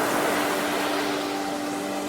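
Steady rushing of sea surf, with a low hum of held steady tones underneath.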